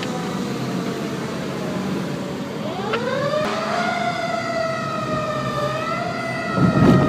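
Fire engine siren heard from a car following it. A faint tone slowly falls away, then about three seconds in the siren winds up in pitch and holds a high wail that wavers slightly. Near the end a louder low rumble comes in.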